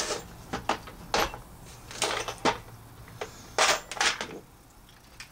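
A string of light, sharp clicks and knocks as tools and a clear plastic organizer box are handled on a workbench, some coming in quick pairs.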